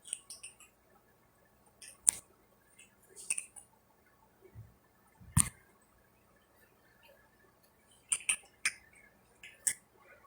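Sparse, separate clicks and light knocks, about a dozen spread out. The loudest is a click with a dull thump about five seconds in, followed by a quick cluster of clicks near the end.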